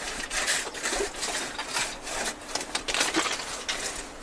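A hand saw cutting through a block of farmed ice, with rasping back-and-forth strokes about two a second.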